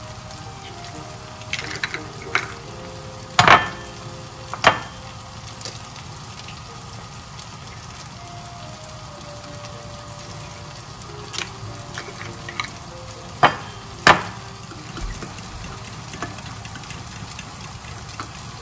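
Chopped tomatoes sizzling steadily in butter in a frying pan, with sharp knocks a few times, loudest in pairs about three seconds and thirteen seconds in, as eggs are cracked on the rim of a ceramic bowl.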